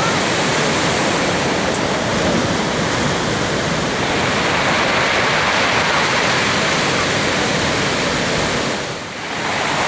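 Steady rush of breaking ocean surf from a large hurricane swell, a continuous wash of noise that drops briefly near the end.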